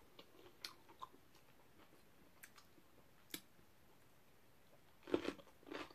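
Quiet eating of dumpling soup: a few faint clicks of chopsticks against a glass bowl, then louder chewing near the end.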